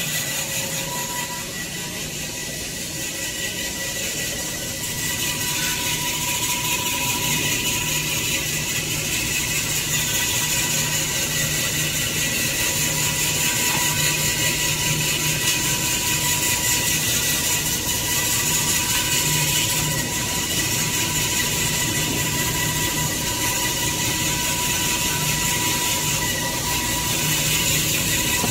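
Tissue-paper production machinery running steadily: a constant mechanical hum with a steady high whine, a little louder from about five seconds in.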